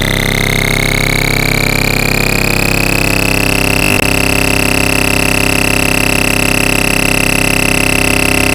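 Oscilloscope-music signal: a continuous electronic buzz built from stacked sine, sawtooth and square waves, the stereo audio that draws mushroom shapes on an XY oscilloscope. Its highest tone glides upward for about three seconds, then holds steady, with a brief click about four seconds in.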